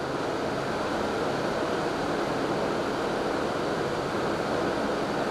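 Steady hiss of background room noise, even throughout, with no distinct strokes or other events.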